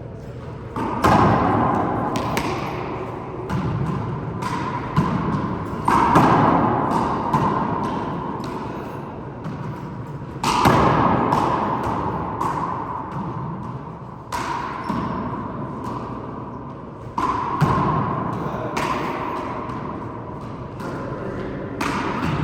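Rubber handball struck by hand and hitting the walls and floor of an enclosed four-wall court during a rally. The hits come at irregular intervals, a few much louder than the rest, and each is sharp and followed by a long echo that rings on.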